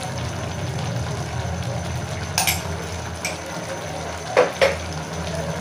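Mutton mince and bitter gourd simmering in an open aluminium pressure cooker on the stove: a steady low hum with a faint sizzle. A few sharp clinks break in during the second half, two close together near the end.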